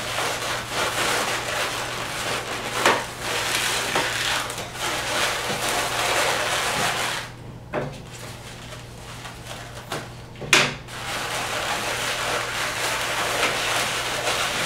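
Latex modelling balloons rubbing and squeaking against each other as they are handled and twisted together, with a few sharp clicks, the loudest about ten and a half seconds in.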